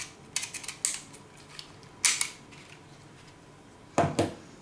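Handling noise of a Braun Series 5 shaver and its small plastic parts: a few short bursts of clicks and rattles, then a knock about four seconds in as the shaver is set down on the wooden tabletop.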